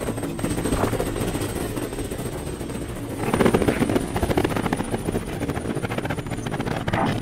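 Helicopter sound effect: a fast, steady rotor chop, louder from about three seconds in.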